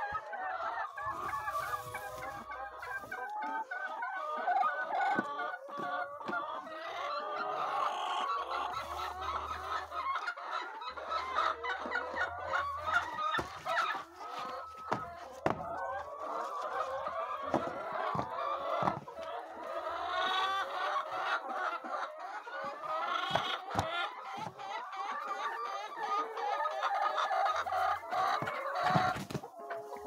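A flock of laying hens clucking and calling over one another without a break, with scattered knocks and clicks throughout.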